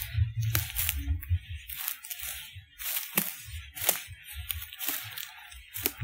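Footsteps crunching through dry leaf litter on a woodland floor, with irregular sharp snaps of twigs underfoot and a low rumble from the handheld camera.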